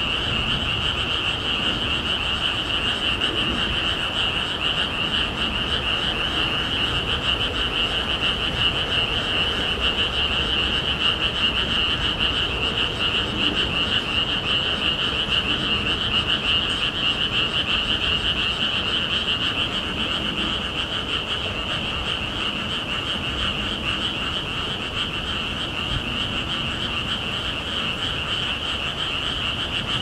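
A dense chorus of many frogs calling nonstop, a steady shrill trilling with no gaps, over a low rumble of strong wind gusting on the microphone.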